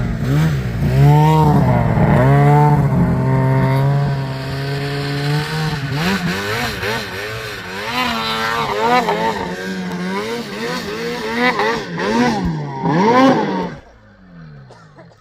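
Snowmobile engine revving up and down over and over as the sled is ridden, the pitch rising and falling every second or so. The engine sound drops away sharply near the end.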